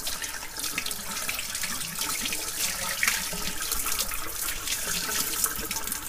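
Kitchen tap running steadily, its water splashing into a ceramic sink.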